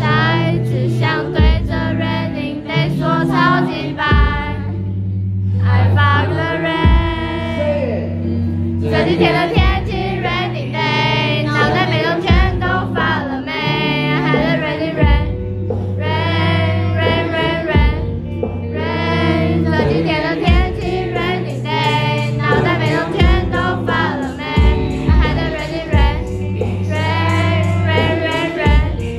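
Live band music: a male vocalist singing into a handheld microphone over a Telecaster-style electric guitar, with sustained low notes and a steady beat underneath.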